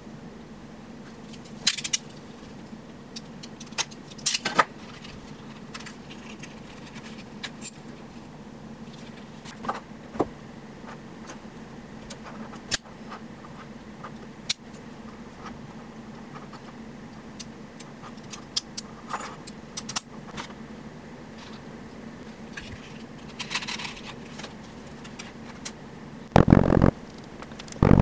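Small brass padlock and its keys being handled: scattered clicks, key jangles and crinkles of a clear plastic bag over a steady low hum. Near the end comes a louder grating of about a second, as a blade scrapes match heads off onto a block.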